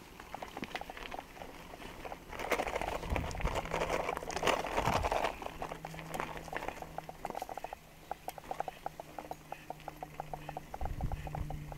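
Bicycle tyres rolling over a gravel track, crunching and crackling, loudest between about two and five seconds in, then a rapid, even run of small ticks.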